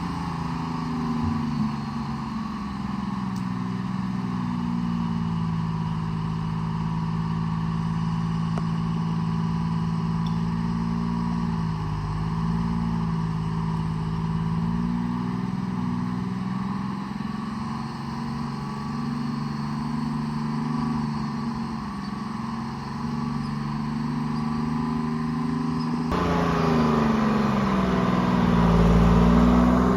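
Diesel engine of a Tree Farmer forestry forwarder running steadily while it works, its pitch sagging and recovering twice as the engine takes load, and growing louder near the end.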